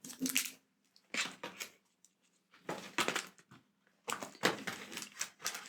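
Board game cards and cardboard components being pushed and fitted back into their box: several short bursts of handling noise with quiet gaps between, busiest near the end.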